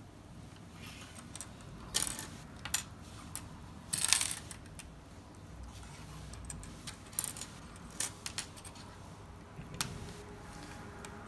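Small plastic Strandbeest kit parts clicking and clattering as they are handled and snapped onto each other with a twist: scattered light clicks, with a louder clatter about two seconds in and a short cluster around four seconds in.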